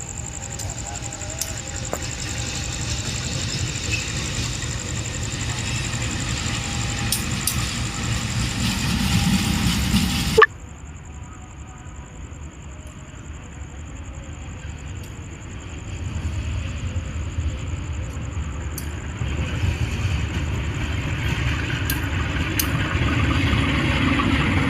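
Train approaching, its low rumble growing steadily louder for about ten seconds. It cuts off suddenly with a click, then the rumble starts again quieter and builds up once more.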